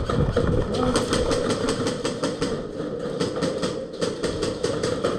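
Airsoft guns firing a fast, steady string of sharp shots, about three to four a second.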